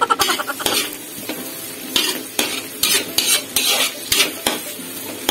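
Spatula stirring and scraping chopped onion and garlic around a stainless steel pan in hot, sizzling butter, with irregular scrapes about twice a second over the frying hiss.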